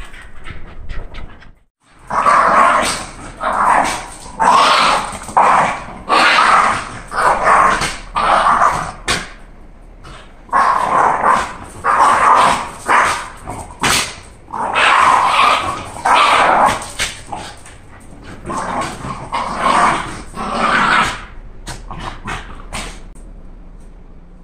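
Two Shiba Inus play-fighting, one or both giving loud, harsh barking growls over and over, about one and a half a second, in runs broken by short pauses, trailing off near the end.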